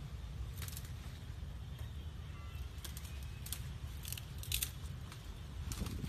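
Outdoor ambience: a steady low rumble, with a few short sharp rustles or clicks and a faint brief chirp about two and a half seconds in.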